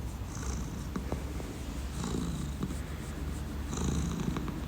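A domestic cat purring close to the microphone: a steady low pulsing rumble that swells slightly with each breath, about every second and a half.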